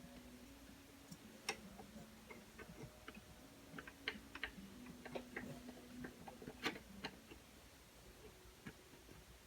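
Faint, irregular small clicks and taps of the AKAI MPK Mini's plastic parts being handled during reassembly. Two sharper clicks stand out, about one and a half seconds in and near seven seconds.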